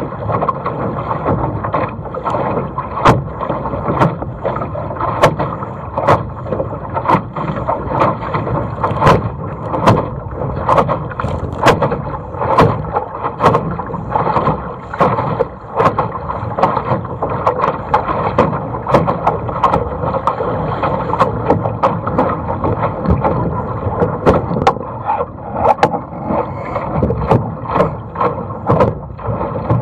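Small sailboat's hull driving through choppy water: a steady rush of water and wind, broken by frequent sharp slaps of waves and spray against the hull.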